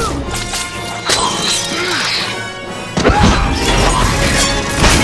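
Action film score music mixed with crashing impact sound effects. A heavy, deep hit lands about three seconds in, and another sharp crash comes near the end.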